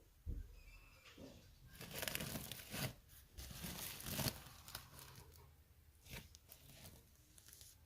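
Irregular rustling and crackling, heaviest from about two to four and a half seconds in, with scattered clicks.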